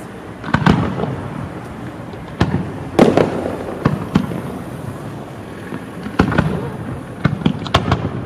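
Fireworks display: aerial shells bursting in a series of loud, irregular bangs, each with a rolling echo. A quick cluster of cracks comes near the end.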